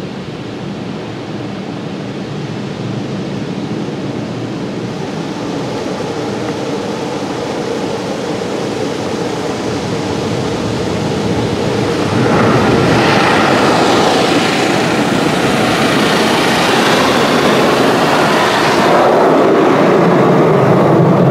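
Karcher Opti Wash 8000 car wash spraying water from its top nozzle bar onto the car, heard from inside the cabin as a steady rushing hiss. It builds slowly and turns suddenly louder and brighter about twelve seconds in as the spray sweeps over the windshield, and grows a little duller near the end.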